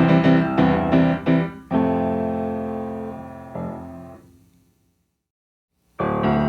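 A rock band's song ends on a few keyboard chords, the last one held and fading away to silence. After about a second of silence the next song starts with a quick, repeating keyboard figure.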